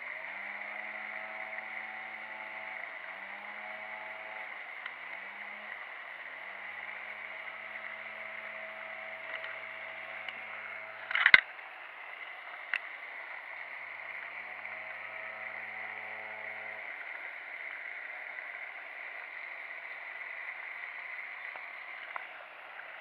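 Steady outdoor hiss with the faint hum of a distant motor rising and fading several times. A sharp knock comes a little before halfway, then a lighter one.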